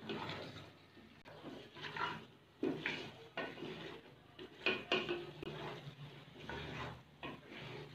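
A spoon scraping and clinking against a cooking pot in irregular strokes as tender, pressure-cooked mutton trotters are stirred over the heat to dry off the last of the water.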